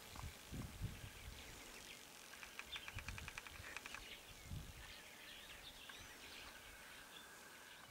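Quiet bush ambience with faint bird calls, including a rapid rattling trill of about ten clicks a second that lasts about a second, a couple of seconds in. Soft low thumps sit underneath.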